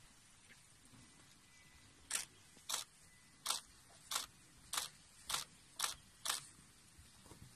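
Camera shutter clicking eight times in quick succession, about two a second and slightly uneven, as photos are taken one after another.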